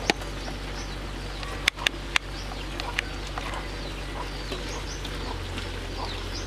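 Metal spatula clacking against a wok while coconut strips are stirred: a few sharp knocks, the loudest a quick cluster of three about two seconds in. Birds chirp throughout in the background.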